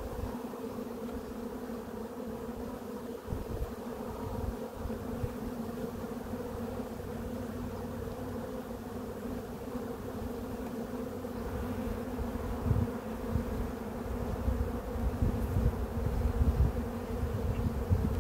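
Honeybees buzzing around an open hive as frames from a nucleus colony are worked: a steady, even hum. Irregular low rumbling underneath gets stronger in the last few seconds.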